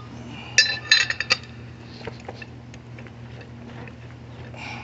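Sharp metallic clinks of a wrench working a nut welded onto a sheared-off bolt as the bolt turns out: a quick run of ringing clinks about half a second in, then a few scattered ticks.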